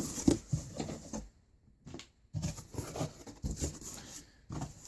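Rustling and irregular light knocks as an 80cc bicycle engine kit is handled and lifted out of its packaging.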